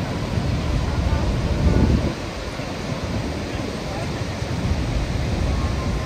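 Steady roar of the water plunging over Niagara Falls, with wind rumbling on the microphone and a stronger gust about a second and a half in.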